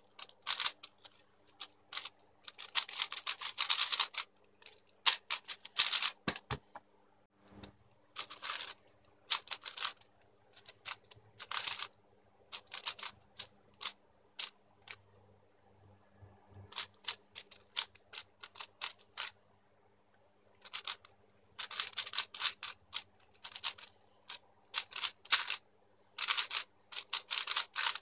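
YuXin Blue 4x4 speed cube being turned fast by hand: plastic layers clicking and clacking in quick bursts, with short pauses between bursts.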